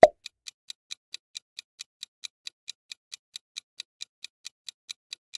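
Clock-ticking sound effect timing a quiz countdown: short, even ticks about four or five times a second.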